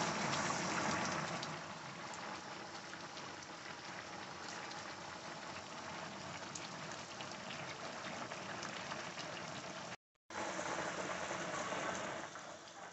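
Chicken stew simmering in a skillet: a steady bubbling hiss with small pops and crackles. It is broken by a brief silence about ten seconds in.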